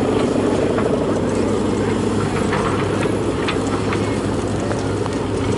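Steady, fairly loud drone of a Balinese kite's bow hummer (guwangan) vibrating in the wind as the kite flies overhead.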